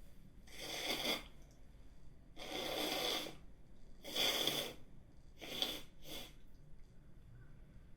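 A woman breathing hard and sniffling through her nose after sneezing: three long noisy breaths about a second each, then two short sniffs close together.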